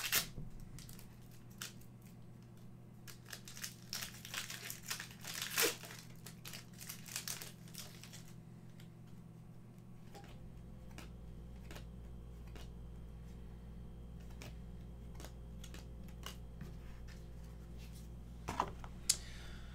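Trading-card pack wrapper crinkling as it is torn open and handled, in a run of short crackles over the first several seconds. After that come only faint ticks of the cards being shuffled through by hand.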